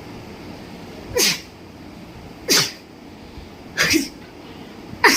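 A woman sneezing four times in a row, about once every second and a half, each a short sharp burst with a falling voice.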